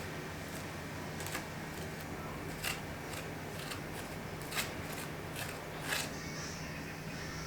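Irregular sharp clicks and taps of kitchen utensils during food preparation, about ten in all, over a steady low hum.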